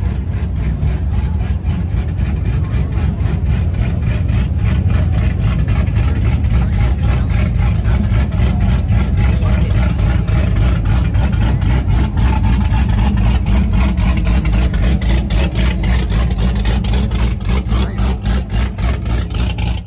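Deep exhaust of performance cars idling and creeping past at low speed, a steady loud low rumble with a rapid regular pulse, including a black Chevrolet Camaro's V8 in the second half.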